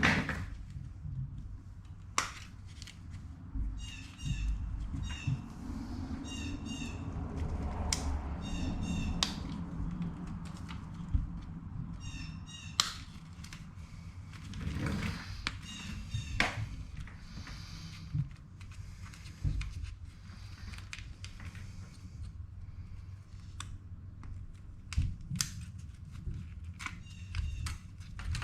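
Hands working on a scooter's front wheel and wiring: scattered clicks, knocks and rustling, with a low steady hum. Groups of short, high chirps recur several times.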